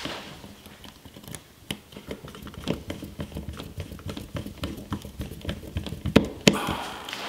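A small screwdriver working the terminal screws of a DITRA-HEAT thermostat, fastening the floor sensor wire: a run of light clicks and scrapes, with two sharper clicks about six seconds in.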